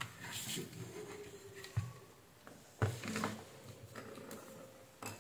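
Faint handling noises on a workbench: light rustling and two short knocks, as a multimeter and test leads are set up.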